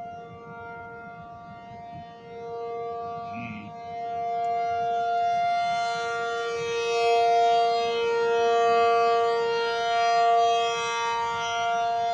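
Outdoor warning (tornado) siren sounding a steady alert tone: an unchanging two-note chord, its loudness swelling and fading about every second and a half as the rotating horn sweeps past, and louder in the second half.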